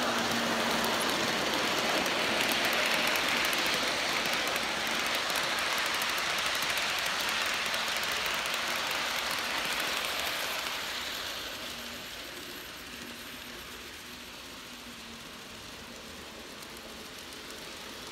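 G-scale Aristocraft U25B model diesel locomotives and freight cars running on garden track: a steady rushing of metal wheels on the rails and the running gear. It is louder for the first ten seconds or so while the train passes close, then settles lower as it moves away.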